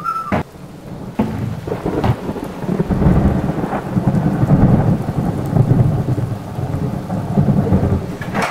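Thunder rumbling over steady rain, swelling about three seconds in and holding before fading near the end. A few sharp clicks sound in the first two seconds.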